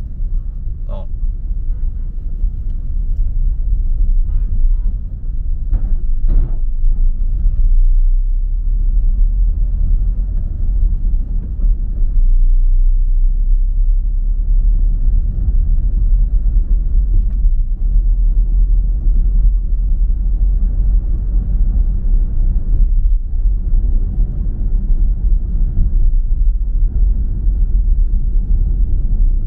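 Steady low rumble of a car driving on a city road.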